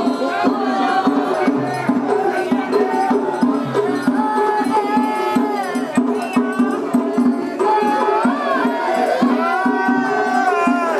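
Festival music: a steady drum beat with a melody of long, bending high notes over it.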